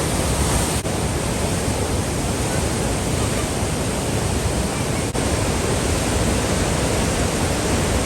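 Floodwater of the Bagmati River rushing through the narrow Chobhar gorge: a loud, steady rush of swollen river water, swollen by a night of heavy rain, with two brief dropouts in the sound.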